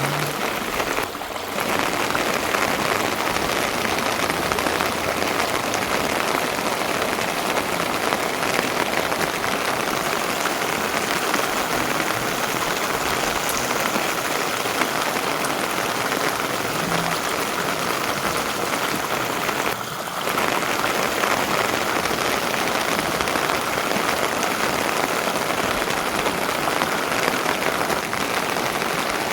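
Steady rain falling, a dense even hiss that dips briefly twice, about a second in and about twenty seconds in.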